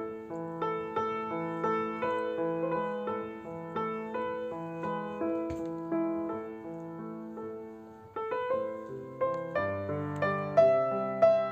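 Background piano music: a repeating figure of struck notes that dips briefly about eight seconds in, then picks up again with lower bass notes.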